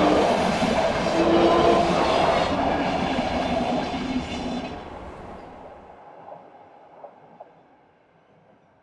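Commuter train passing close by: loud rolling wheel-and-car noise with a steady tone running through it. About four seconds in it begins to fade as the train moves away, dying out to near silence, with a few faint clicks along the way.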